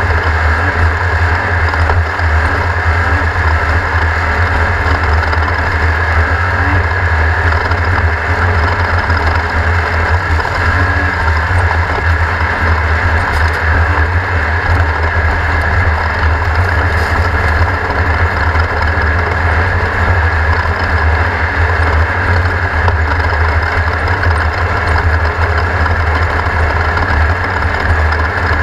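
Off-road race car engine running steadily, a constant low drone with no clear revving.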